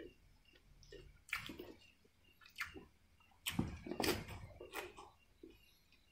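Close-miked eating sounds: wet chewing and mouth smacking in irregular short bursts, loudest a little past the middle.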